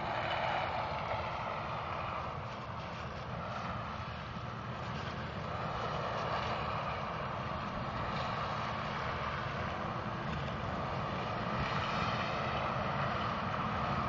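Claas Lexion combine harvester cutting maize in the distance: a steady engine-and-machinery drone that grows slowly louder as the combine approaches.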